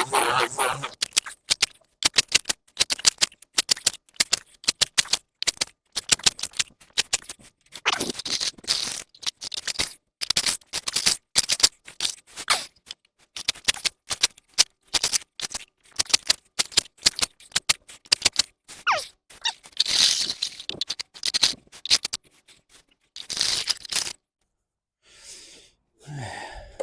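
Spade work on a muddy path: many quick, irregular knocks and clicks of the blade on the ground and debris, with a few longer scrapes.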